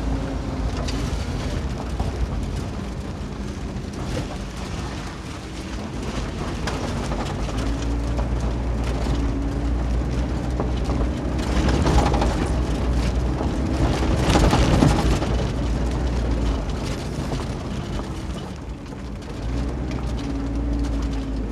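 Inside the cab of a 2020 Kia 4x4 driving on a rough gravel dirt road: steady engine and drivetrain hum with the rumble of tyres over gravel and rocks. It gets louder and rougher a little past halfway, then settles again.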